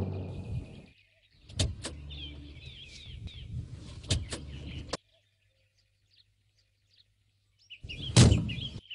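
A car's engine dies away in the first second while birds chirp. Car door latch clicks follow, then a few seconds of near silence, then one loud thump of a car door about eight seconds in.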